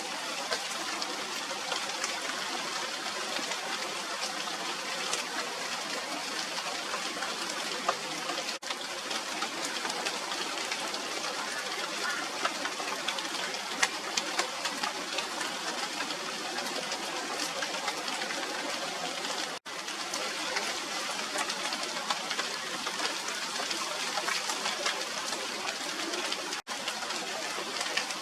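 Steady rain falling on a tree's leaves, an even hiss dotted with countless small drop hits. It cuts out for an instant three times.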